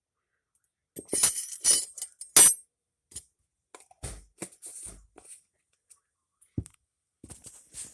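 A spice jar of cayenne pepper shaken in a few quick rattling shakes, followed by scattered light clicks and a single knock.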